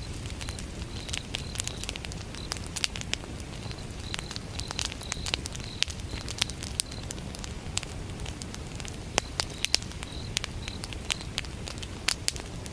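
Wood fire crackling, with irregular sharp snaps and pops over a low, steady rumble of burning. Crickets chirp in short, repeated high pulses throughout.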